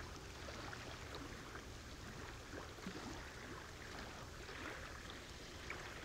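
Faint lapping of lagoon water, a soft steady wash with a few small splashes.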